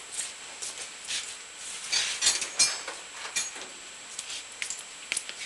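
Metal hand tools clinking and clattering as a wrench is picked out from among the tools on the bench. Scattered light clicks, with the loudest ringing clinks about two seconds in.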